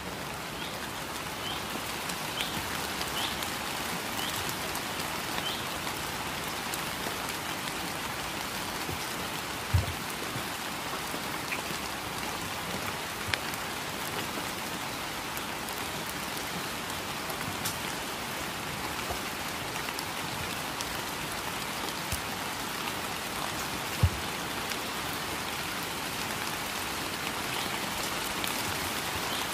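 Steady rain falling on a wet surface, with two brief low thumps, about ten seconds in and again near twenty-four seconds.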